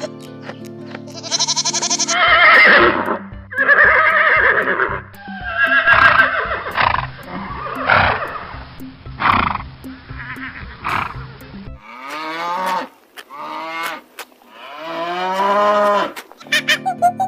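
A series of farm animal calls, some with gliding pitch, over background music with a steady beat; music alone at the start and end.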